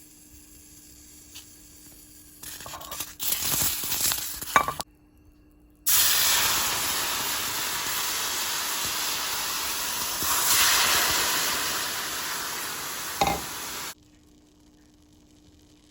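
Jalapeños sizzling in a hot pan: a stretch of sizzling with a few clinks, a short break, then a louder, steady sizzle for about eight seconds with one sharp clink near the end before it cuts off.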